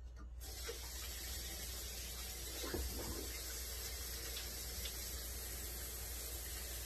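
Kitchen faucet running into the sink, turned on about half a second in, with a brief clatter near the middle.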